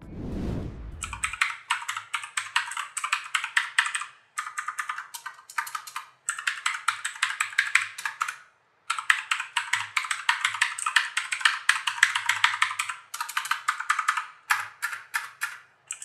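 Fast typing on a Zebronics Max Pro mechanical keyboard with Outemu blue switches: rapid keystrokes in runs of a few seconds, with short pauses about 4, 6 and 9 seconds in. A brief whoosh comes just before the typing starts.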